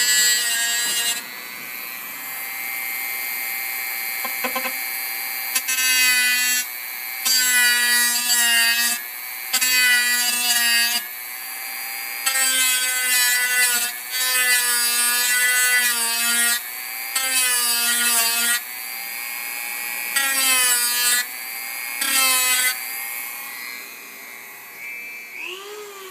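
Dremel rotary tool running at high speed, grinding down a solder joint on code 83 HO model rail. It bites in repeated bursts of about a second each, and its pitch dips under load. The tool winds down near the end.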